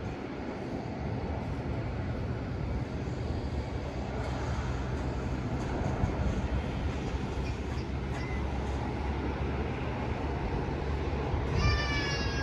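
Steady low rumble of jet airliner engines. Near the end a high voice calls out briefly.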